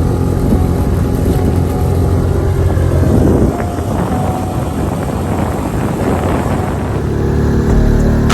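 Mercury 5 hp outboard motor running under way, still being broken in. About three seconds in, its steady note turns into a rougher, noisier wash, and the steady note comes back near the end.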